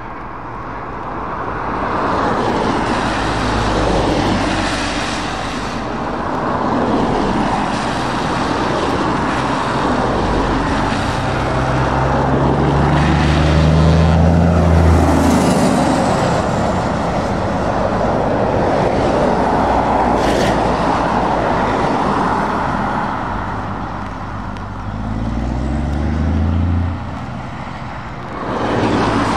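Road traffic of heavy trucks and cars passing on a wet road: a steady hiss of tyres on wet asphalt, with heavy diesel truck engines pulling past, their pitch rising as they accelerate about halfway through and again near the end.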